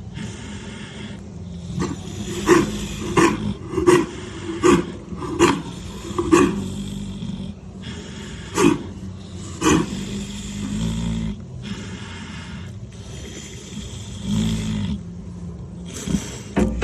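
Sleeping pig snoring: breathy snores with low groaning tones, broken by short sharp snorts, about seven in quick succession from about two seconds in, then a few more spread out later.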